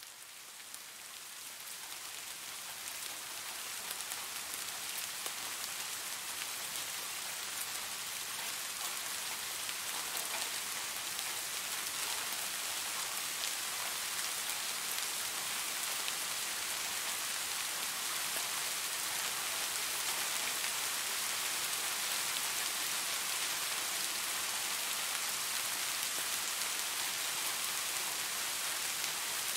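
Light rain falling steadily on forest foliage, an even hiss with faint scattered drop ticks, fading in over the first few seconds.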